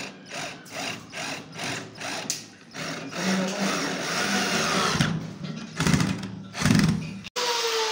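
Electric drill-driver running in short bursts as it drives a screw through a metal keyhole escutcheon plate into the cupboard door, with a steady motor hum and louder surges near the end. It is preceded by a run of light, regular ticks, about three a second.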